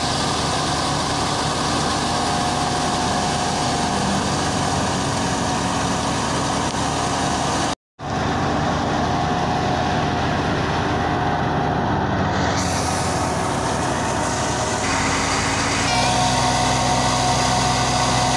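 Tractor-driven wheat thresher running at working speed: a steady engine drone under a constant mechanical whine from the threshing machine. The sound drops out for an instant about eight seconds in.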